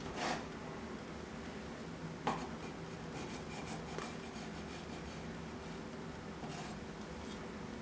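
Serrated bread knife sawing through castella sponge cake on a wooden cutting board: a few short scratchy rasps as the blade cuts the crust and grazes the board, the sharpest about two seconds in, over a low steady hum.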